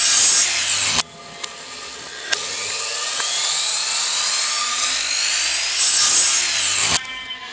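Electric compound miter saw running with a high whine and cutting through small wooden blocks. The motor cuts off suddenly about a second in, then spins up again for a second cut near the end, which stops abruptly.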